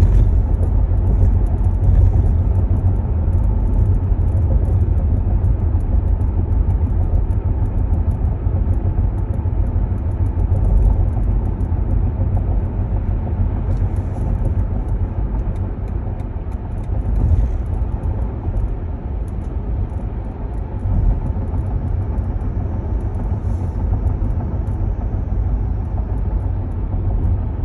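Steady low road rumble of a BMW iX electric car in motion, with a faint, fast, uneven high clicking on top: the clicking noise that the car is making.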